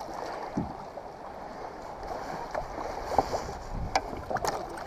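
Water lapping and sloshing against a kayak, with a few small clicks and knocks scattered through.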